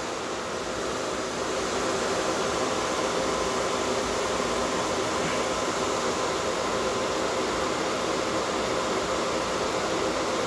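Homemade R22 air-conditioning unit running steadily, its compressor and condenser water pump giving a constant whir with a few steady humming tones.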